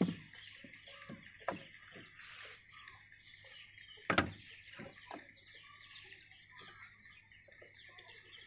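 A few sharp knocks, the loudest about four seconds in, over faint outdoor ambience with small birds chirping in the distance.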